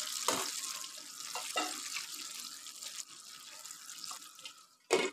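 Mutton pieces bubbling in water and ghee in a nonstick frying pan: a steady, fizzy simmering hiss that slowly fades. Near the end a glass pan lid clatters on, with two sharp knocks about half a second apart.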